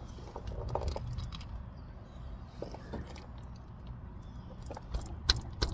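A wrench clinking on a car's oil drain plug as it is worked loose, with a few light metal clicks early on and a quick run of sharper clicks near the end.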